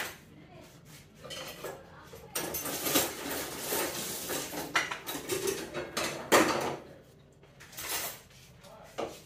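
Dishes and cutlery clinking and clattering, with a busier run of clatter in the middle whose loudest knock comes about six seconds in.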